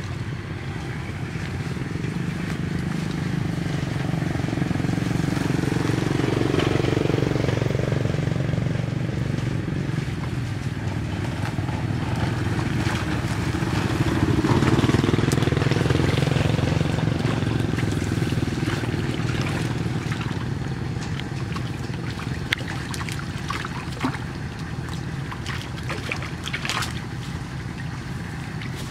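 Engine of a passing motor vehicle, swelling to a peak and fading, then swelling and fading again. A few sharp clicks near the end.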